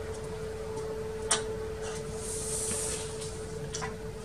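Aluminium straightedge being handled on a thick glass sheet: a sharp click about a second in, a soft high scrape around the middle and a light tap near the end, over a steady hum.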